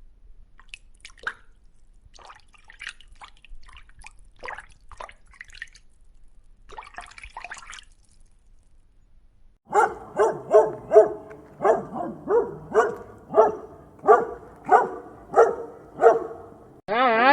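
A dog barking about a dozen times in a steady series, under two barks a second, after several seconds of faint scattered ticking.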